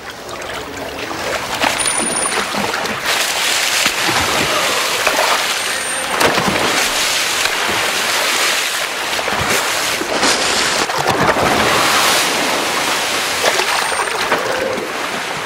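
Dolphins splashing in a show pool: a steady rush of churning water with several louder splashes as they leap and fall back in.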